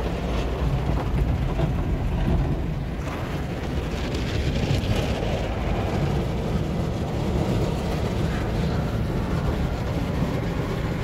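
Automatic car wash tunnel machinery running, heard from inside the van's cab: a steady low rumble with a rushing hiss that swells slightly a couple of times.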